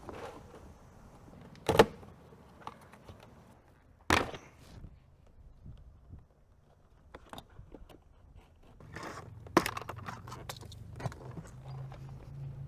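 Hand work on a car door: two sharp knocks, about two and four seconds in, among scattered light clicks and rattles. A low steady hum comes in about nine seconds in, with more clicks over it.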